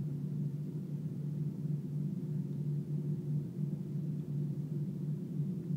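Airbus A320 cabin noise while the aircraft taxis: a steady low hum and rumble from inside the cabin.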